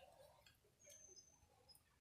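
Near silence, with a few faint, brief high-pitched chirps and small clicks.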